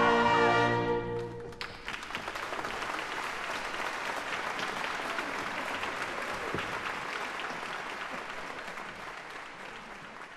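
An orchestra holds a final chord that breaks off about a second and a half in, and an audience applauds, the applause fading out steadily.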